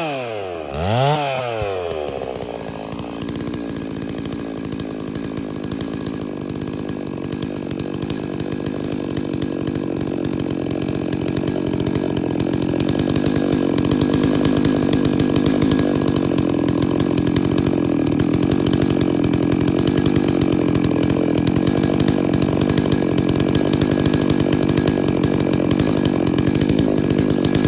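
Gas chainsaw blipped up and back down about a second in, then running steadily under load, cutting through a large sweet gum log; it grows louder partway through as the cut deepens.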